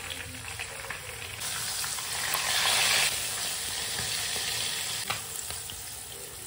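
Whole fish deep-frying in hot oil in a wok: a dense, steady sizzle that swells about a second and a half in and eases off toward the end as the fish is turned with tongs.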